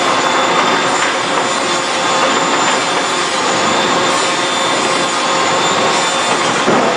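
Semi-automatic box gluer running steadily: a loud, even mechanical noise with a few faint steady whines through it.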